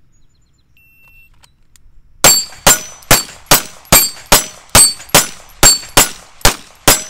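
A shot timer's faint beep about a second in, then a semi-automatic pistol firing twelve rapid shots, about two and a half a second, with steel plates ringing on several of the hits.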